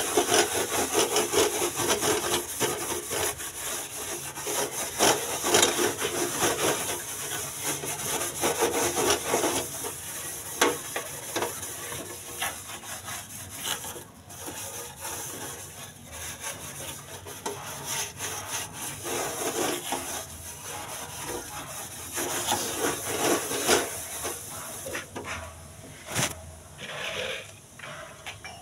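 Hand scrubbing a stainless steel gas stove top with soapy water: continuous scratchy rubbing in irregular strokes, quieter in the last few seconds.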